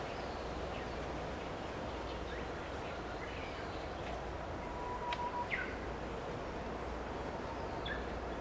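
A few short, scattered bird chirps over a steady background hiss. The clearest is a quick downward-sliding call about five and a half seconds in, and another comes near the end.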